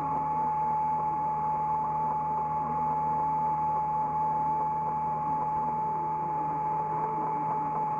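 Hydraulic excavator running, heard from inside the operator's cab: a steady engine and hydraulic drone with a constant high whine over it.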